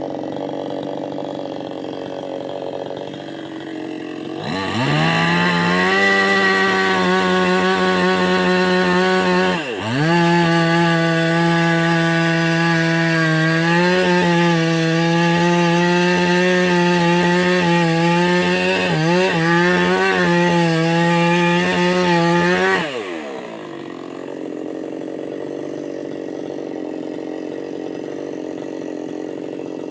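Chainsaw revs up about four seconds in and runs at high, steady throttle cutting into a palmyra palm trunk. It dips briefly once and recovers, then drops back off near the end. The cutters complain the chain has no edge and won't cut.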